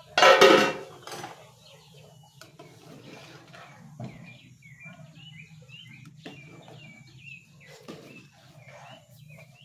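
Metal lid lifted off a steaming cooking pot with one loud clatter, followed by a few light knocks of a spoon against the pot as the food is stirred. Birds chirp in the background.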